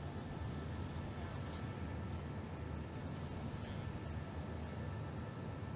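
Insects chirping in a steady rhythm, a few high pulses a second, over a steady low rumble.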